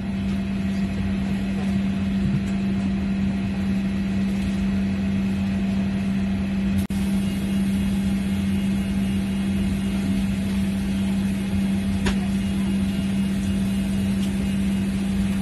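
Steady machinery drone heard inside a parked airliner's cabin, a constant low hum with a noisy rush over it. It cuts out for an instant about seven seconds in, and there is a faint click about twelve seconds in.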